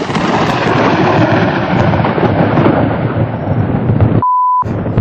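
Loud rolling thunder from a very close lightning strike: a dense, continuous rumble whose upper, crackling part slowly fades. Near the end the rumble drops out for under half a second while a short, steady beep tone sounds, then the rumble returns.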